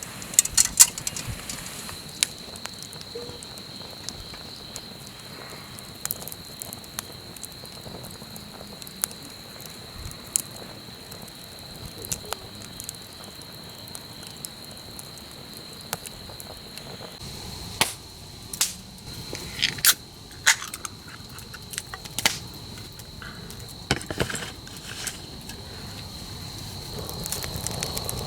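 Wood campfire crackling, with irregular sharp pops that come thicker a little past the middle. A steady high thin tone runs underneath.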